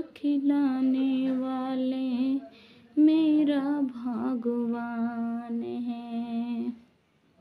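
A woman's voice singing unaccompanied in long, slow, held notes, in two phrases with a short break between; it stops shortly before the end.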